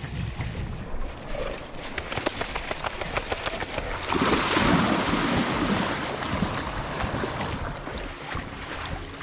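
Wind on an action camera's microphone, with scattered clicks and scuffs of steps on wet sand, then a louder rush of splashing shallow lake water about four seconds in.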